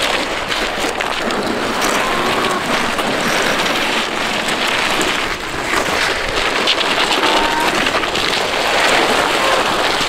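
Motorcycle jeans and jacket scraping along asphalt as a rider is dragged on a tow rope in an abrasion test: a steady, coarse scraping hiss that swells and eases a little.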